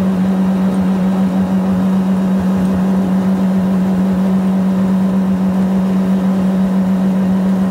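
Yamaha outboard jet-drive boat motor running at full speed, a loud, steady, unchanging drone.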